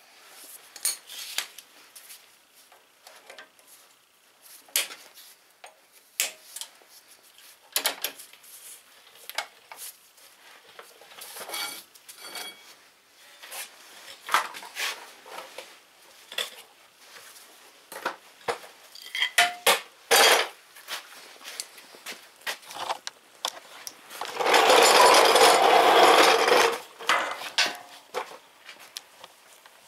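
Metal parts of a garden tractor's rear axle and brake drum clinking and knocking as they are handled by hand. About three-quarters of the way in comes a loud steady rushing noise lasting about three seconds.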